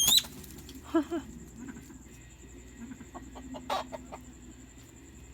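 Chickens clucking in short, scattered calls, opening with one sharp, high, rising squawk that is the loudest sound.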